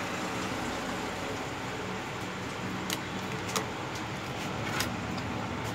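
Steady background hum, with a few faint clicks as a phone's circuit board in its frame is handled and set down on a wooden workbench.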